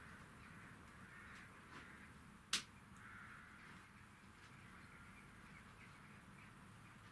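Quiet room tone with one sharp click about two and a half seconds in, and faint bird calls in the background.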